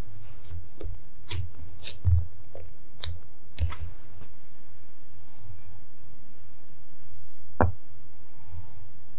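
Hands patting and shaping balls of bread dough on a silicone baking mat: soft low thumps and light taps. Then brown sugar is poured into a glass bowl, with faint hissing and one sharp tap about two-thirds of the way through.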